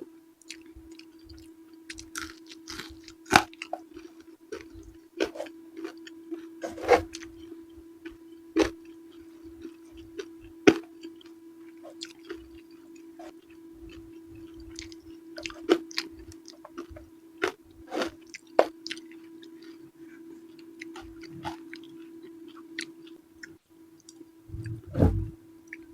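Close-miked chewing and mouth sounds of a person eating eggplant with sambal: irregular wet smacks and crunches over a steady low hum, with a louder low thump near the end.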